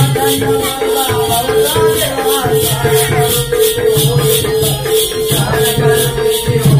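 Music for a Konkani Balya dance: a steady rattling jingle about three times a second over a held drone and a shifting melody.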